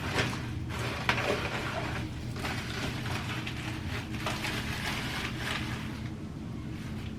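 Irregular clicks, scrapes and rustles of small objects being handled and rummaged through, over a steady low hum.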